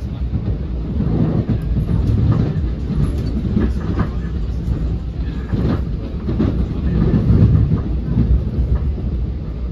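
NJ Transit Multilevel passenger coach rolling along, heard from inside the cabin: a steady, loud low rumble from the wheels and track, broken by several sharp clicks and knocks as the wheels pass over the rails.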